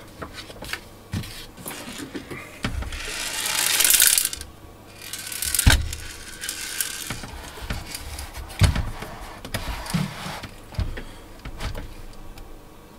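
Handling noises as a preamp's metal chassis is brought over and set down on the workbench: a rustling slide of about a second and a half, then a sharp knock about six seconds in, followed by a few lighter clunks and taps.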